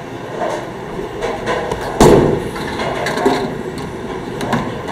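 A bowling ball dropping onto the wooden lane with a loud thud about two seconds in, then rolling down the lane amid steady bowling-alley background noise.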